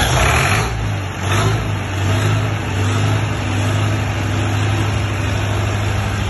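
Diesel engine of an open-frame 62 kVA generator set starting up. It fires with rough surges in the first second and a half, then settles into a steady low running drone.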